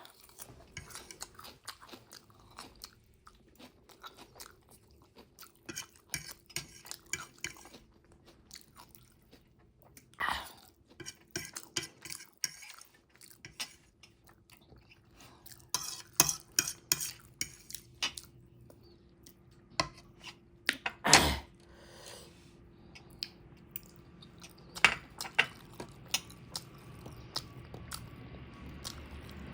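A person chewing and crunching food close to the microphone, in clusters of crisp bites, with occasional knocks and clinks of cutlery against a dish, the loudest about two-thirds of the way through.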